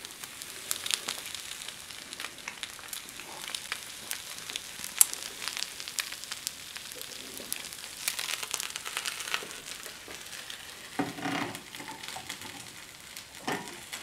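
Eggs frying in oil in a hot crepe pan, sizzling with fine irregular crackles over a steady hiss. Two brief louder noises come near the end.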